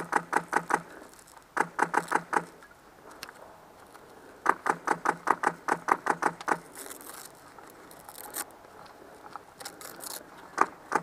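Airsoft guns firing in rapid strings of shots, about six or seven a second: a short string at the start, another about two seconds in, and a longer one around the middle, with a few more single shots near the end.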